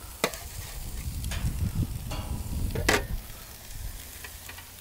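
Raw beef burger patties sizzling on the hot grate of a preheated gas grill. A few sharp metal clinks from the spatula and sheet pan break through, the loudest about three seconds in.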